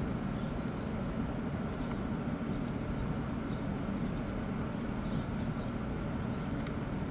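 Steady low mechanical rumble with no pauses, with faint short high chirps now and then above it.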